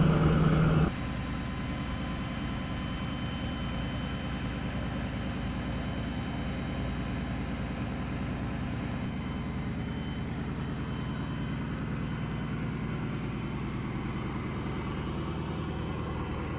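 A louder engine sound cuts off about a second in, leaving an engine running steadily at a low idle.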